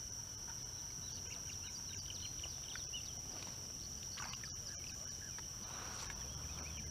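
Steady, high-pitched insect drone with scattered bird chirps over it.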